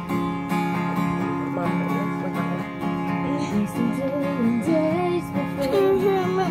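Guitar strummed in a steady rhythm, playing chords between sung lines of a song.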